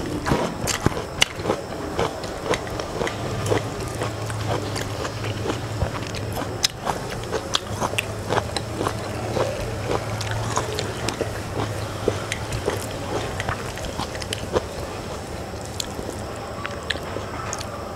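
Close-miked mouth sounds of eating rice and curry by hand: chewing and wet lip smacks, with many sharp little clicks. A low steady hum sits under it in the middle stretch.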